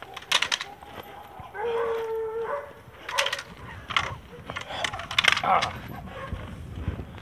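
Bite-work scuffle: a Malinois-type dog gripping a jute bite sleeve while the helper wrestles it, with scattered sharp knocks and scuffs. One held, pitched cry lasts about a second, starting about one and a half seconds in.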